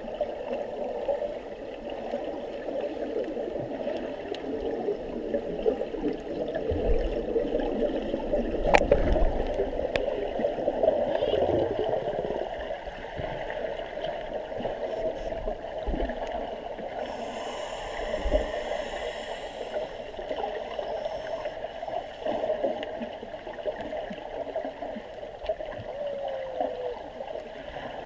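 Water gurgling and bubbling in a continuous, busy churn, with a few dull low thumps.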